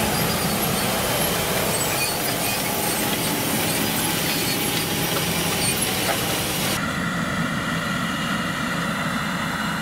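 Fendt 720 Vario tractor's six-cylinder diesel engine running under load as it pulls a Väderstad Tempo maize planter across dry ground, with a loud rushing hiss over the engine. About seven seconds in the hiss drops away sharply, leaving the steady engine sound.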